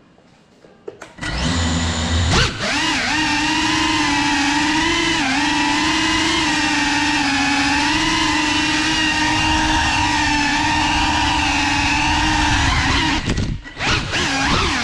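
Cinelog35 cinewhoop FPV drone's brushless motors and propellers spinning up about a second in, then a loud, steady, high buzz in flight whose pitch wavers slightly with throttle. It drops out briefly near the end, then comes back with bigger swings in pitch. It is heard from a camera mounted on the drone.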